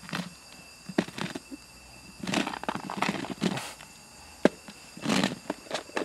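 A plastic lock-lid food container is pushed and slid over asphalt by hand, making short scraping sounds and a few sharp plastic clicks.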